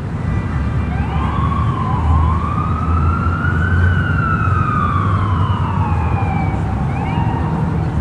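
Emergency-vehicle siren wailing, its pitch starting about a second in, rising slowly and then falling, with another short rise near the end, over a steady low rumble of city traffic.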